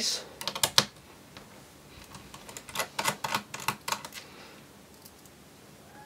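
Light, sharp clicks and taps from a small Phillips screwdriver working the base screws out of a laptop's plastic underside panel. A cluster of clicks comes near the start and a quicker run of them about halfway through.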